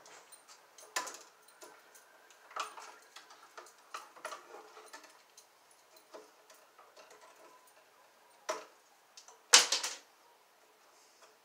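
Clicks and snips of red-handled wire strippers working electrical wire at a metal junction box. Light clicks and taps are scattered throughout, with a single sharper snap about eight and a half seconds in and the loudest quick cluster of snaps about a second later.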